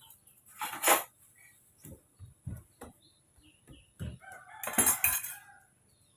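Metal spoons and dishes being handled: several short knocks and clinks, with two louder clatters, about a second in and near five seconds in.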